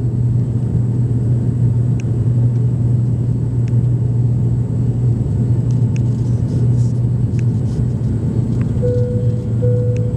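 Steady cabin drone of a high-wing passenger plane in flight, a strong low engine hum under a wash of airflow noise. Near the end a short steady tone sounds twice.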